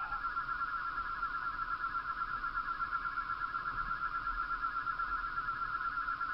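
A steady electronic tone with a fast pulse, held on one pitch, like a sustained synthesizer note in a soundtrack. It steps up to a higher pitch right at the start.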